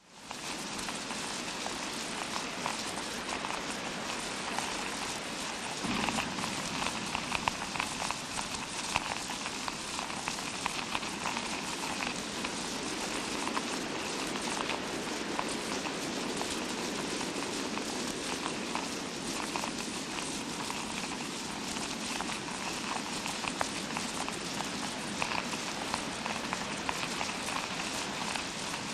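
Fake rain sound effect: a steady, dense patter of tiny ticks and crackles imitating rainfall, fading in quickly at the start.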